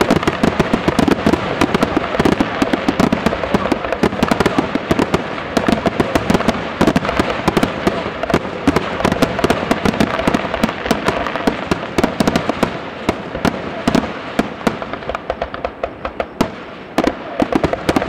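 Aerial fireworks shells bursting in a rapid, continuous barrage of many bangs a second.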